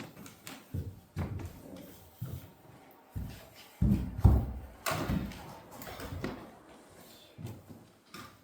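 Scattered knocks and thumps; the loudest, a heavy pair, comes about four seconds in.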